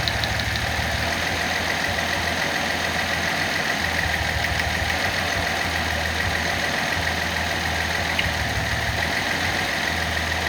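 Nissan L28ET turbocharged straight-six idling, with a low hum that swells and fades every couple of seconds. The engine's misfire has been cured by a new manifold gasket.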